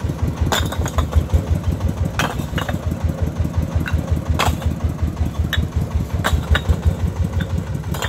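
Fired clay bricks being tossed onto a brick pile, giving sharp, hard clinks about once a second, the crisp ring of well-fired bricks. Under them a công nông's single-cylinder diesel engine idles steadily.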